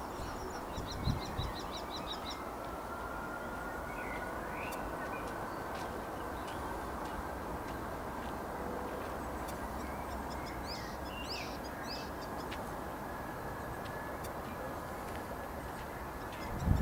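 Distant Boeing 757 jet engines: a steady rumble with a faint whine that slowly rises in pitch as the engines spool up for takeoff. Birds chirp briefly over it, near the start and again a few times later.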